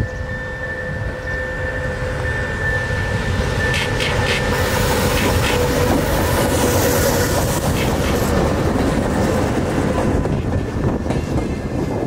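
2TE116 twin-section diesel locomotive passing close by, its diesel engines running with a low rumble that grows loudest about halfway through. Its wheels clack over the rail joints, with a few sharp clicks about four seconds in, and its wagons follow. A steady high squeal dies away about five seconds in.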